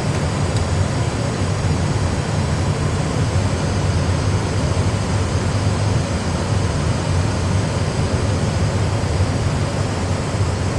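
Steady low rumble with an even airflow hiss: the simulated flight-deck noise of an Airbus A320 full flight simulator in flight.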